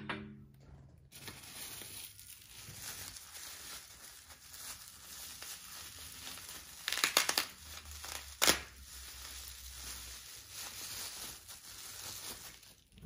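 Plastic bubble wrap crinkling and rustling as it is unwrapped from a fossil tooth, with a cluster of sharp cracks a little past halfway and one louder crack about a second later. A hard tap at the very start.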